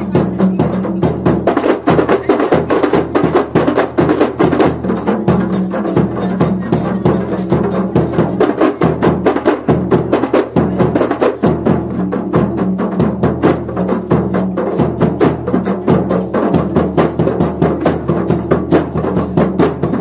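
A kompang ensemble, many Malay hand-held frame drums, beating a fast, steady interlocking rhythm together in dense hand strokes.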